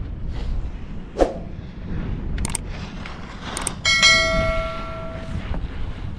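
Wind buffeting the microphone on an open chairlift, with a knock about a second in. A few seconds in come two pairs of quick clicks and then a bright bell-like ding that rings for about a second and a half: the click-and-notification-bell sound effect of a YouTube subscribe-button overlay.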